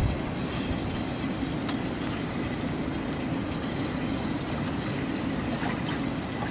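Wind buffeting the microphone in a steady low rumble, with a steady hum under it.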